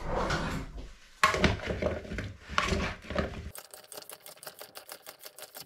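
A metal spoon stirring chopped vegetables in a ceramic bowl, clattering and scraping against the bowl. In the last two seconds this turns into a quieter, fast run of light clicks.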